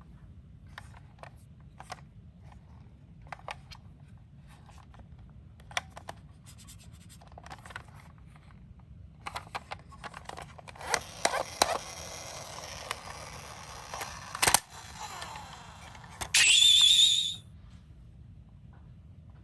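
Die-cast toy minicars clicking and clattering as they are handled, then several seconds of rolling and scraping broken by a few sharp knocks, one very sharp. Near the end comes a brief, loud, high-pitched tone with a slight waver, the loudest sound here.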